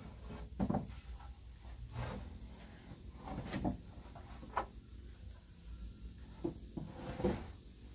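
Irregular knocks and scrapes, about six spread unevenly, over a faint steady high-pitched hum.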